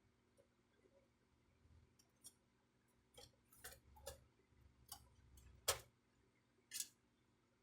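Scattered faint clicks and taps of plastic printer parts being handled, about seven in all, with one sharper click about two-thirds of the way through.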